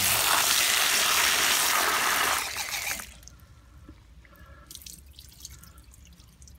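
Tap water gushing into a plastic basin of swamp eels, which fades out about three seconds in. After that, quieter sloshing and dripping as hands rub the eels in the water.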